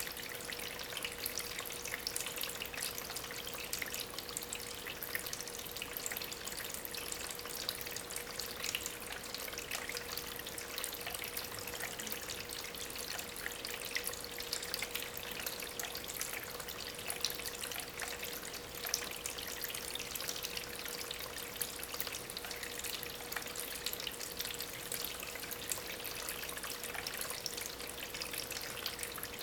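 Water splashing and trickling steadily over stones in a small homemade tabletop waterfall, in a dense patter of fine splashes. A steady thin hum sits underneath.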